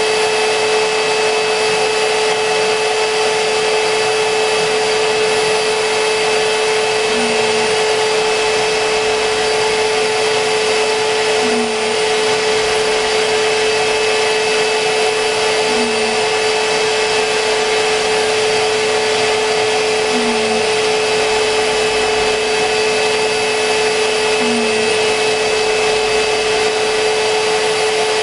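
Kress 1050 router spindle on a DIY CNC router running at full speed while milling a flexible clear PVC sheet: a loud, steady high whine at one pitch, with a faint small blip about every four seconds.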